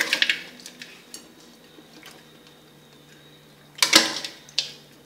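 Spatula scraping and knocking against a metal wok while stir-fried frog is scooped out onto a plate: a sharp clatter at the start, then another burst of scraping and clinks about four seconds in.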